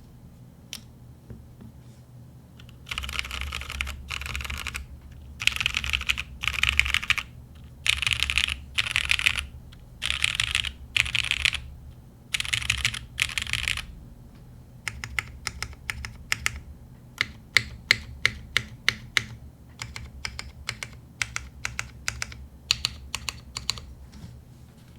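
Frog TKL mechanical keyboard with an aluminium plate, lubed Cherry Black linear switches and GMK keycaps being typed on. First come about ten short runs of rapid keystrokes, each about a second long with brief pauses between. Then come slower, separate keystrokes.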